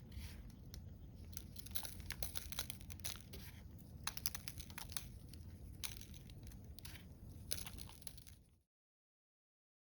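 Irregular crackling and crinkling, many sharp little cracks over a low rumble, cutting off suddenly near the end.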